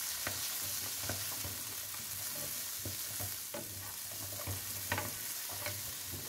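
Diced potato and quince with onion sizzling in oil in a nonstick wok while being stirred with a wooden spatula: a steady sizzle with scattered scrapes and taps of the spatula against the pan.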